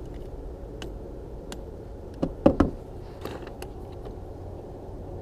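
Hand tools being handled and set down: scattered light clicks, then three quick knocks a little over two seconds in.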